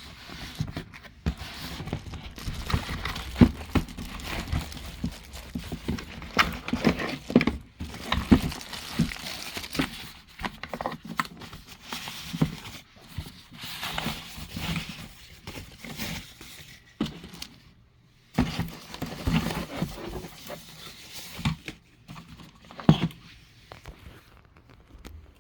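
Plastic and cardboard packaging of a keyboard and mouse set being handled, crinkling and rustling, with irregular knocks and clicks as parts are taken out and set down.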